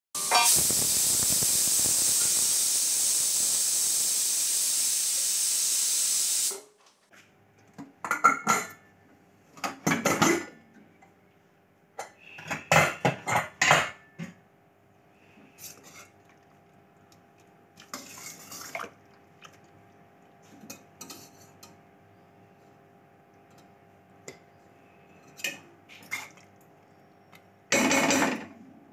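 Stovetop pressure cooker venting steam: a loud steady hiss for about six and a half seconds that cuts off suddenly. Then metal clinks and scrapes as the lid comes off and the cooked moong and kidney beans are stirred with a spoon in the pot.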